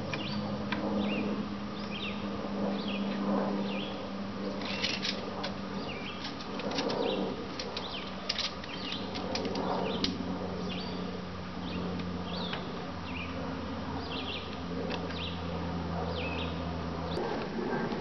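A steady low buzzing hum with light clicks and rattles from a tape measure and pencil working on a board, and short bird chirps in the background. The hum drops out abruptly near the end.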